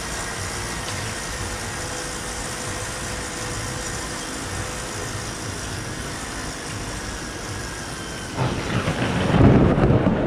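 Thunder from a lightning strike: after a steady background hum, a sudden crack about eight seconds in builds quickly into a loud, deep rumble that is still going at the end.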